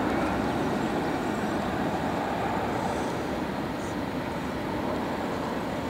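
Boeing 737-800's CFM56-7B turbofan engines on final approach, gear down: a steady rush of jet noise that slowly fades as the plane descends away.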